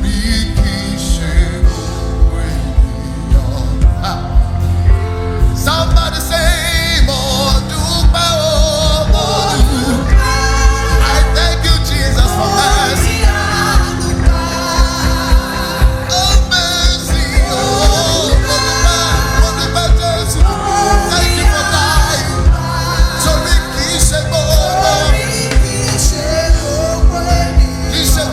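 Live gospel worship music: voices singing over held keyboard chords and a steady drum beat, with the singing growing fuller about six seconds in.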